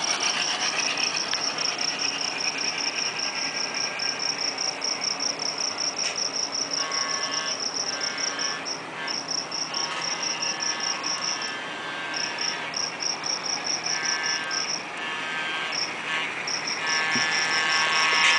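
Sound from the HO-scale GP9's Tsunami decoder playing through the model's small speaker, with stretches of a sustained multi-tone sound that comes and goes and grows louder near the end. A rapid, high-pitched chirping, several chirps a second, runs throughout with a few short breaks.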